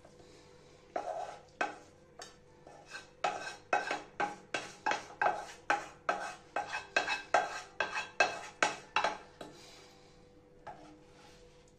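A spatula scraping and knocking against a red frying pan as cooked fish curry is scraped out of it onto a plate. A quick run of sharp scrapes and taps starts about a second in, comes about three a second in the middle, and stops about nine seconds in.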